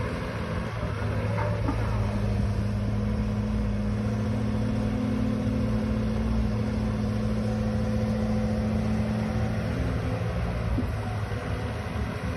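Diesel engine of a Case CX130C excavator working, with its hydraulics, beside a diesel dump truck; a steady hum whose note shifts slightly about ten seconds in.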